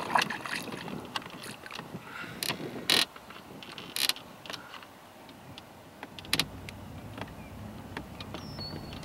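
Scattered sharp clicks and knocks of fishing gear and a small boat being handled while a hooked bass is played, about half a dozen over several seconds with quieter rustling between. A short high chirp comes near the end.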